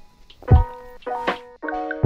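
Background music: held chords over a beat, with a deep drum hit about half a second in.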